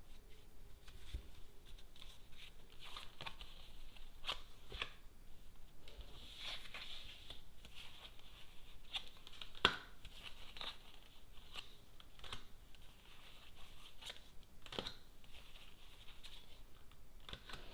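A deck of Lenormand cards being shuffled by hand: a dry rustle of cards sliding against each other, broken by scattered light snaps. The sharpest snap comes about ten seconds in.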